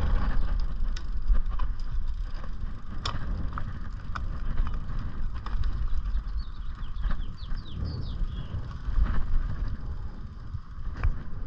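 Road bike being ridden: wind rumbling on the microphone with tyre noise and scattered clicks and rattles from the bike, and a short run of high chirps about two-thirds of the way through.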